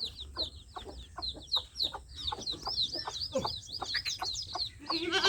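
Baby chicks peeping: many short, high, downward-sliding peeps overlapping without a break, with soft taps among them.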